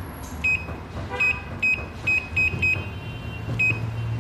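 Key-press beeps from the control panel of a CNY E900 computerised embroidery machine: short, identical high beeps, about eight of them at an uneven pace, one per button press while scrolling through the design file list. A steady low hum runs underneath.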